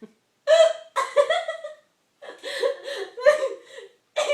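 Giggling laughter broken by sharp, sudden hiccups, one about half a second in and another near the end.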